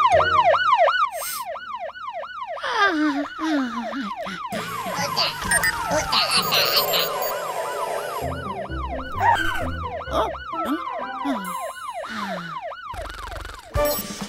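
Cartoon fire-truck siren wailing in fast rising-and-falling sweeps, about three a second. A couple of times the pitch sags into a long falling whine.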